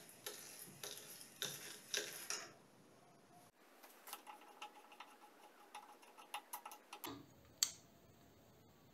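Faint, irregular metal clicks and clinks from handling a clamped hand-cranked metal meat grinder and its crank handle, with one sharper click near the end.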